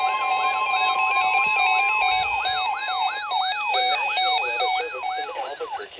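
Electronic alert siren sweeping up and down about three times a second, over a steady high alert tone for the first half, fading near the end. It is the attention signal that opens an Emergency Alert System severe thunderstorm warning.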